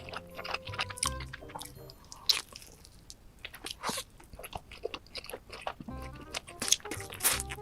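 Close-miked crunching bites and chewing of food, a run of sharp crackles. Background music plays under it at the start and again near the end.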